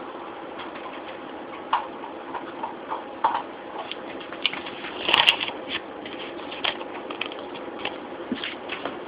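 Garlic being shaken from a plastic spice shaker onto a buttered pizza crust: irregular light rattles and taps, loudest a little past halfway, over a steady background noise.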